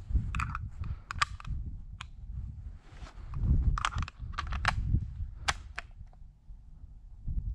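Footsteps crunching on a dry, leaf-strewn forest track, with irregular sharp clicks and a low rumble on the microphone from the moving camera.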